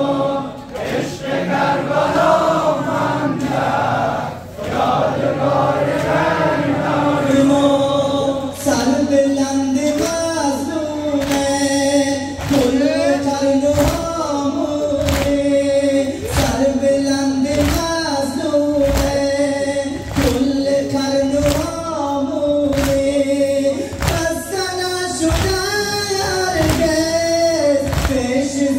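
A congregation of men chanting a Muharram mourning lament (nauha) together, with loud, even chest-beating (matam) keeping time about once a second from roughly eight seconds in.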